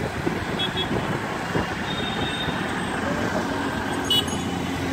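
Road traffic running steadily, with cars, auto-rickshaws and motorbikes passing; a brief sharp high sound about four seconds in.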